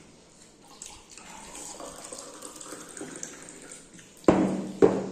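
Water poured from a plastic jug into a glass, a soft steady splashing trickle, then two loud thuds about half a second apart near the end.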